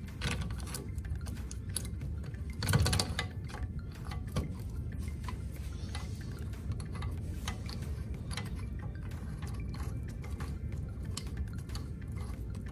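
Light metallic clicks and clinks as a locking hub is fitted over a Jeep CJ5's front wheel hub studs and its nuts are started by hand, with one louder clunk about three seconds in. A low steady hum runs underneath.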